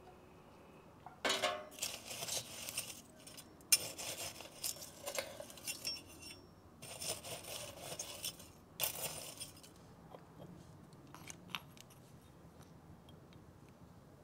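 Metal fire tongs raking glowing charcoal embers in the firebox of a steel wood stove: scraping and clinking of metal against the stove and the coals in three spells, then a few faint clicks.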